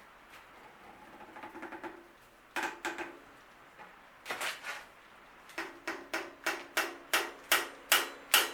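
Repeated sharp metallic taps, each with a short ring, like a hammer striking a metal part. A few scattered taps and a short cluster come first, then about ten in a steady row, getting louder toward the end.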